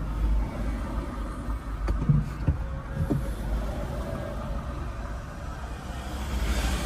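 Road vehicle on the move: a steady low rumble of engine and road noise, with a few short knocks about two to three seconds in.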